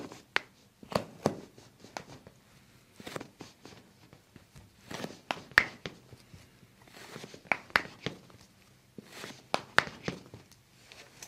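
Toe joints cracking as a chiropractor pulls and adjusts the toes: several short, sharp pops, mostly in pairs a fraction of a second apart, picked up close by a microphone at the foot.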